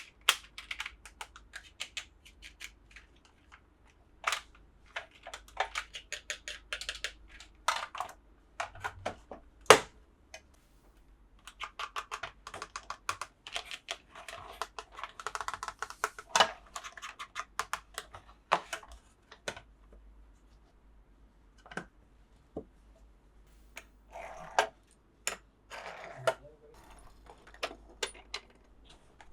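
Hands handling plastic toy pieces and packaging: many irregular sharp clicks and taps, with stretches of crinkling and rustling in between.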